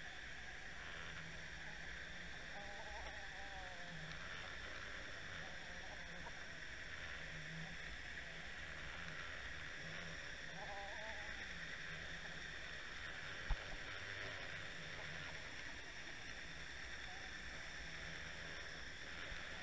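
Steady underwater hiss and low rumble picked up by a camera resting on the seabed, with faint wavering tones twice and one sharp click about thirteen seconds in.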